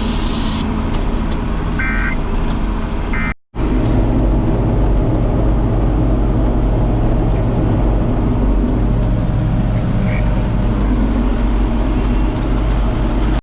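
Tractor engine running steadily, heard from inside the cab, with two short high tones in the first few seconds and a brief cut in the sound about three and a half seconds in.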